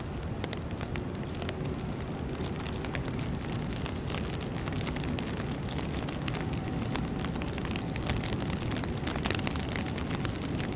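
Outdoor city ambience in heavy snowfall: a steady low rumble with a dense crackle of small ticks throughout.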